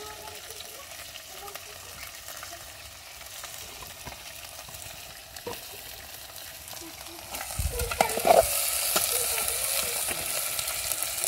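Diced potatoes frying in oil in a metal pot over a wood fire, with a steady sizzle. About two-thirds of the way through the sizzle grows louder and a metal spoon knocks and scrapes against the pot as the potatoes are stirred.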